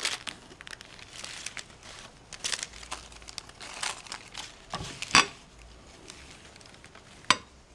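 Rustling and crinkling of wool fabric being handled and pulled over a sleeve ironing board, in irregular bursts. There is a sharp knock about five seconds in and another a couple of seconds later.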